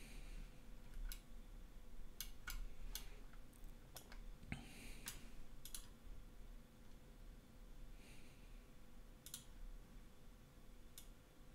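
Computer mouse clicking, about ten sharp clicks at irregular intervals, with a couple of soft breaths through the nose between them.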